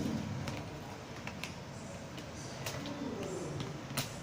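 A disposable plastic cup knocked and bitten by a playing kitten: a few scattered, light clicks and taps.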